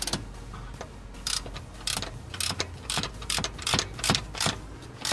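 Hand socket ratchet wrench clicking as a nut is turned, one short stroke of clicks about every half second, starting about a second in.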